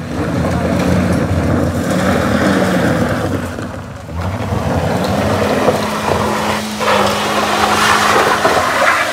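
Suzuki Ertiga MPV engine revving hard under load as it climbs a steep loose dirt-and-gravel slope, with tyres scrabbling and kicking up gravel. The engine pitch climbs, drops briefly about four seconds in, then holds high and steady.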